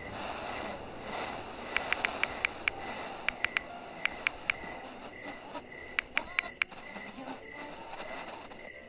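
Phone touchscreen keyboard click sounds, short sharp ticks coming in quick runs of two to five as a message is typed, with pauses between runs. Behind them runs a steady faint pulsing chirp like crickets.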